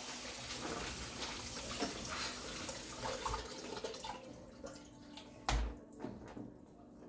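Kitchen mixer tap running into the sink while food is rinsed under it by hand. The water stops about four seconds in, and a single knock follows a little later.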